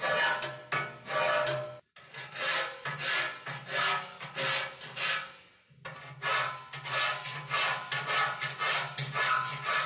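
Hand file rasping across the edge of a steel chiminea body in steady strokes, about two a second, squaring off a corner of the firebox opening. The strokes cut off sharply about two seconds in and ease off briefly a little after five seconds.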